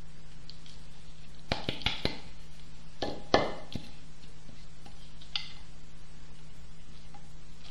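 Knocks and clatter of a drilled pine board being handled on a tile floor: a few sharp taps about one and a half to two seconds in, then a louder knock and clatter a little after three seconds, as sawdust is brushed and shaken off the board.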